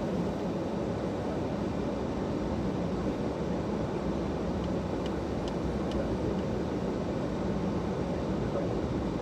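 Steady car cabin noise while driving: the engine and tyres rumble evenly from inside the car, with a few faint ticks about five to six seconds in.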